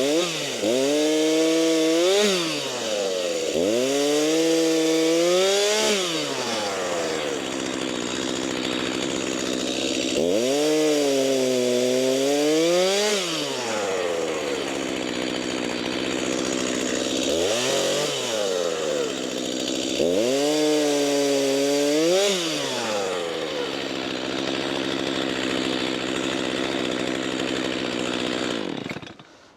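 Freshly sharpened Stihl chainsaw cutting cherry logs into rounds. The engine's pitch climbs and drops about five times as it works through the cuts, with steadier stretches in between, and the saw cuts off just before the end.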